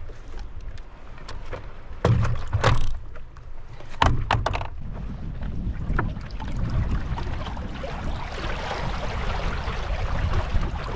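Stand-up paddleboard being paddled across a lake: water splashing and lapping at the board, growing fuller in the second half, with a few sharp knocks around two and four seconds in and a steady low rumble of wind on the microphone.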